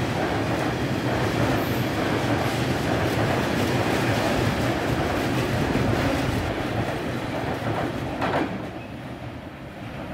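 Freight train of Eas open wagons rolling past: steady wheel rumble with clatter over the rail joints, fading after about seven seconds as the last wagons go by, with a single short knock about eight seconds in.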